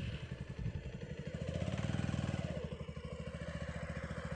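Motorcycle engine running at low revs as the bike rides slowly up, a steady rapid pulsing from the exhaust; the revs rise a little in the middle and then ease off.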